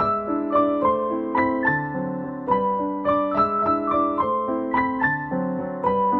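Background music: a soft piano melody played as a steady run of notes, several a second.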